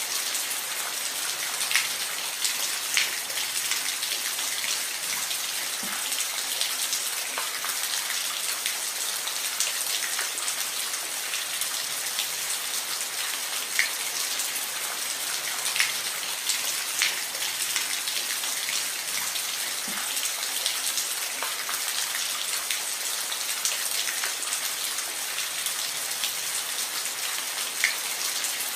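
Steady rain falling, a continuous hiss with individual drops ticking sharply on a surface now and then.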